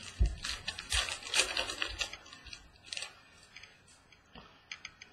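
Football trading cards being handled: flicked through and set down on a table, a quick run of clicks and rustles in the first two seconds, then a few sparser taps.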